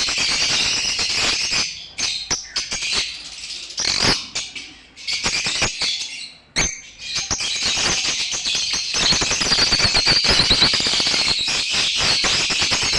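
A flock of birds chirping and chattering in a dense chorus, with many short clicks among the calls. It thins out twice, about two seconds in and again around five to six seconds in, then fills back in.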